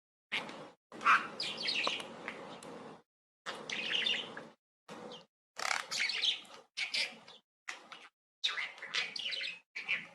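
Birds chirping and chattering in a string of short pieces, each one cut off abruptly with brief silences between them.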